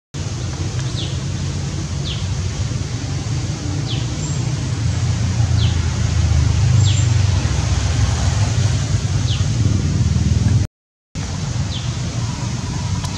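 Short, high, falling bird chirps repeat about every one to two seconds over a steady low rumble of traffic or wind. The sound cuts out briefly near the end.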